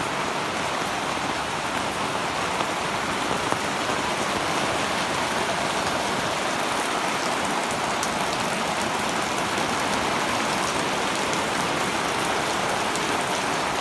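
Heavy storm rain pouring down steadily, an even hiss of falling water.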